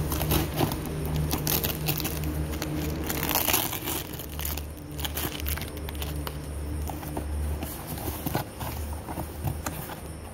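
A taped cardboard box being handled and opened: crackling and tearing of packing tape and rustling, scraping cardboard flaps, busiest in the first few seconds, over a steady low hum.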